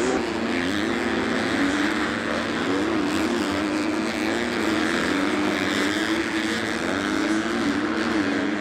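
Supercross dirt bikes' four-stroke engines revving on the track, the pitch climbing and dropping again and again as the riders throttle on and off.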